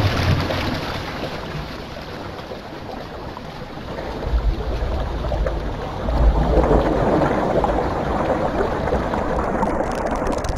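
Rushing, gushing water with deep rumbles that swell about four and six seconds in.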